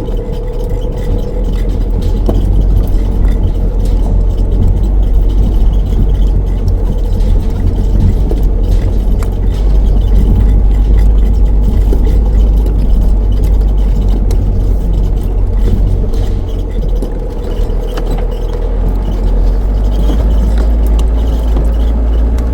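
Vehicle driving on a gravel track, heard from inside the cabin: a loud, steady low rumble of tyres and engine with scattered rattles and scrapes.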